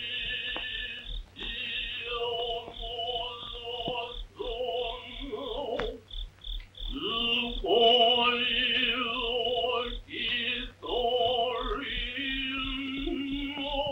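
Film soundtrack music: a voice singing a melody in separate phrases over instrumental accompaniment.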